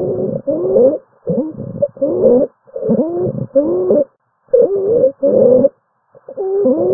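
Stridor in a clinical recording of a patient's breathing: a musical noise of wavering pitch that comes in short pairs, repeating about every two seconds with rapid breaths. Stridor is a sign of narrowing in the upper airway.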